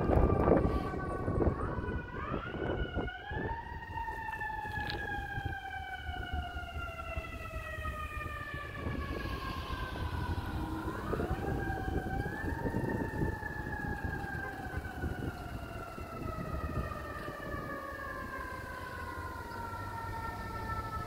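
Fire engine siren winding up quickly and then slowly winding down in pitch, twice: once about two seconds in and again about eleven seconds in. A vehicle engine rumbles low underneath, loudest at the start.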